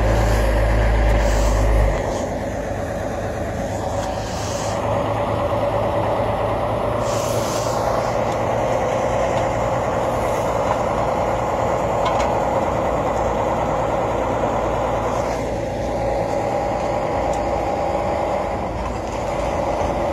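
Heavy trucks' engines running steadily, with a heavy low rumble over the first two seconds.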